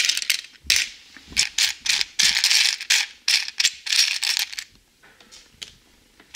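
Loose plastic LEGO bricks clattering and rattling as a hand rummages through them in a plastic tray. The rattling stops about four and a half seconds in, leaving only faint, scattered clicks.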